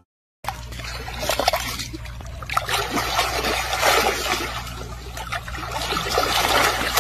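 Water splashing and sloshing as a baby elephant rolls in a shallow pool. It is a continuous, crackly wash of small splashes that starts about half a second in.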